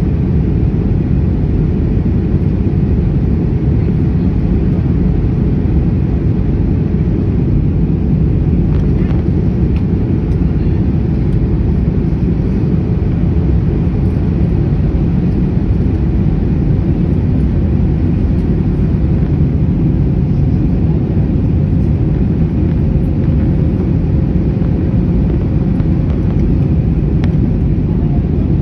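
Airbus A321 in flight: a loud, steady low rumble of jet engines and airflow, with a faint steady hum above it.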